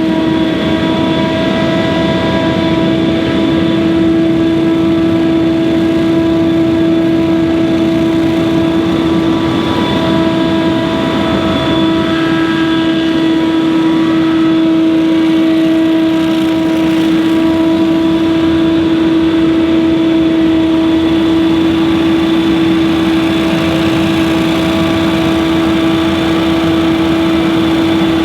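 Stand-on leaf blower running steadily at full throttle, its engine and fan giving a loud, unbroken drone with a strong steady tone.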